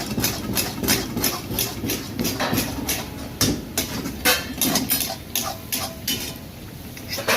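Rapid, irregular knocking of metal kitchen utensils on cookware, about three or four strikes a second, thinning out near the end. Under it runs a steady low rumble from the kitchen's stoves.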